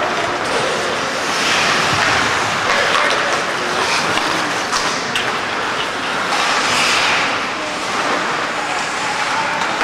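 Ice hockey play: skate blades scraping and carving across the ice in repeated swells, with a few sharp clicks of sticks and puck.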